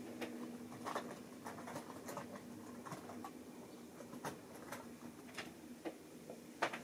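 Model railway train running out of sight on the layout: a faint motor hum that fades after about two and a half seconds, with scattered light irregular clicks of wheels on the track.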